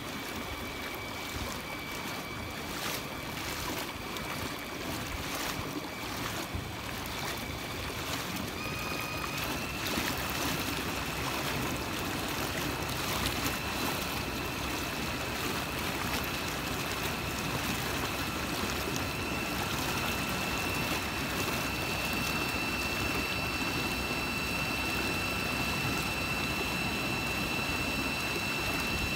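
A small motor whines steadily at a high pitch over water lapping and wind noise. About eight seconds in, the whine steps up in pitch and gets a little louder, as the motor speeds up.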